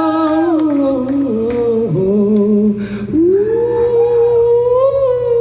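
Rock band playing live, with a lead melody of long held notes that slide up and down between pitches and waver near the end.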